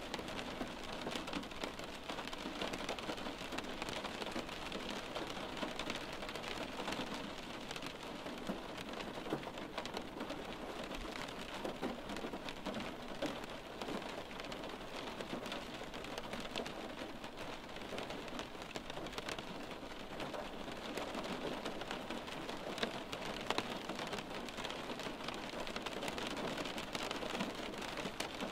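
Steady rain on window glass, heard from inside: an even hiss threaded with many small drop taps.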